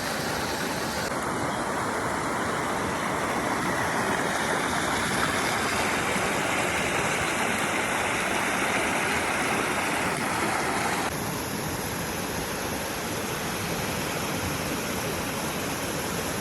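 Waterfall water pouring in a steady rush. Its tone changes abruptly about a second in and again about eleven seconds in.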